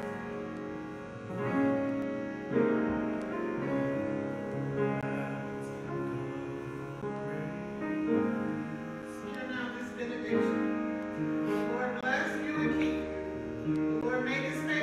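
Slow instrumental church music on a keyboard, held chords changing about once a second, with a deep bass note coming in near the end.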